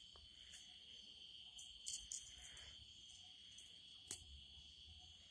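Near silence: a steady, faint, high chirring of insects, with a few light clicks of knife blades being handled about two seconds in and again about four seconds in.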